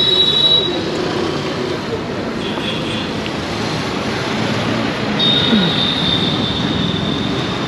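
Busy city street traffic: a steady mix of engines and tyres. A thin, high, steady squeal sounds briefly at the start and again from about five seconds in.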